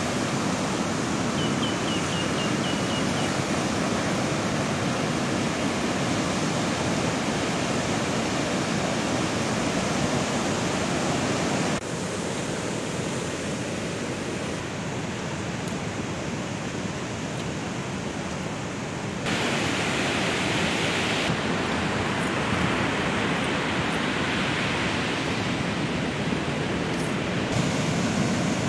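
Sea surf breaking on a sandy beach with wind, a steady rushing noise that changes abruptly in tone and level twice, about 12 and 19 seconds in. A short run of faint high chirps is heard about two seconds in.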